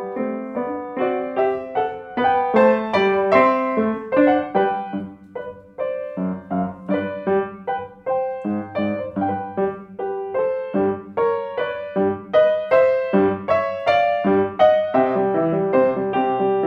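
Solo piano played with both hands: a continuous stream of distinct notes, growing briefly softer about five seconds in before picking up again.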